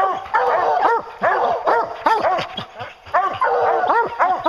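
Several bear hounds barking at the foot of a tree, short rising-and-falling barks overlapping in quick bursts with brief lulls between them. This is tree barking, the sign that the hounds have a bear treed.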